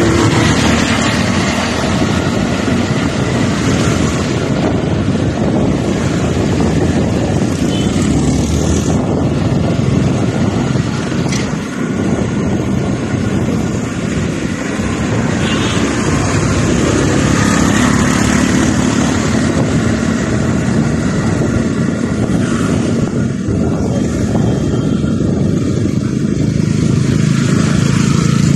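Riding a motor scooter along a town street: steady wind noise on the microphone over the scooter's engine and passing motorcycle traffic, the engine hum coming through more clearly near the end.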